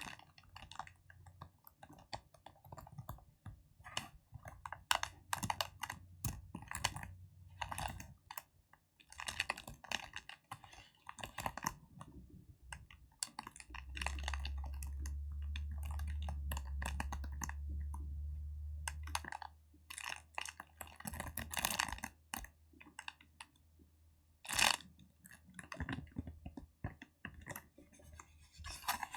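Fingertips tapping and making crackly sounds in quick, irregular clusters with short pauses. From about halfway through, a low steady hum runs underneath for about five seconds.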